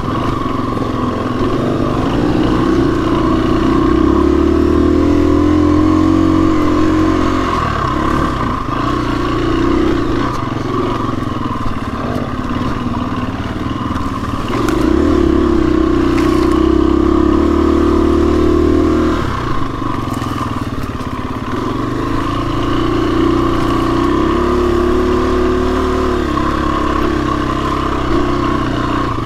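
KTM enduro dirt bike engine running under load on a rough trail, its pitch rising and falling as the throttle is opened and eased off, with a few brief knocks from the bike over the ground.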